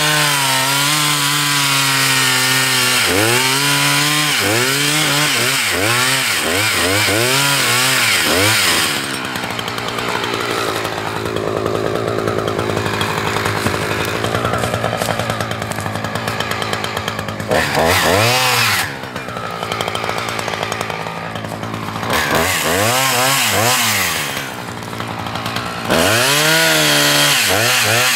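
Husqvarna 359 chainsaw, a 59 cc two-stroke, bucking a fallen log. The engine is revved up and let back down over and over, drops to a lower idle for several seconds at a time, and is held at high revs near the end.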